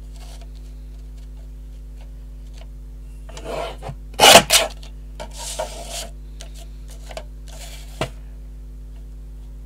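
Paper being cut: after a stretch of quiet, a short scraping cut about three and a half seconds in peaks in two sharp strokes, followed by a softer scrape and a single click a few seconds later.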